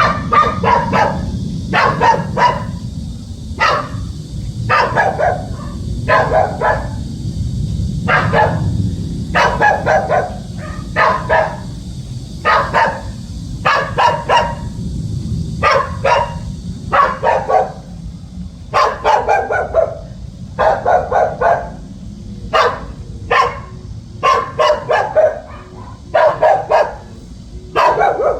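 Dog barking over and over as a watchdog, in runs of one to three sharp barks about a second apart, with brief gaps between runs.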